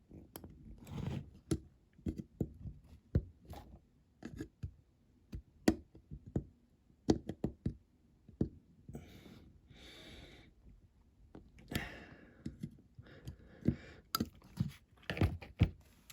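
Irregular small knocks and clicks of a 1:64 diecast model and its parts being handled and pressed together on a workbench, as a part is pushed down into place.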